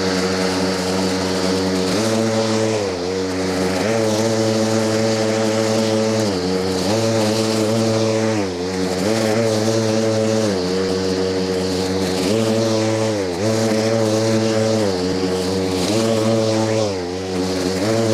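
Milwaukee M18 FUEL 21-inch cordless lawn mower's brushless blade motor running under load while cutting and bagging grass. Its whine dips in pitch and recovers every second or two as the blade meets thicker patches of grass.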